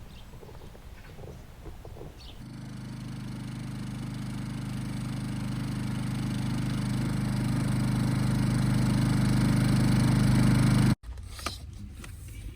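A steady, even-pitched mechanical hum starts a couple of seconds in and grows steadily louder for about eight seconds, then cuts off suddenly near the end, leaving faint clicks.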